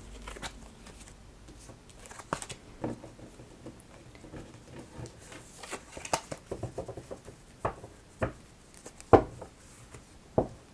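Tarot cards being handled: light papery patter and scattered taps, with a stretch of quick light ticking midway and two sharper taps near the end as cards are set down.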